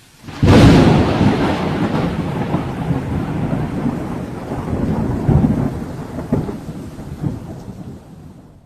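A sudden thunderclap about half a second in, then rolling thunder that rumbles on in several swells and slowly fades.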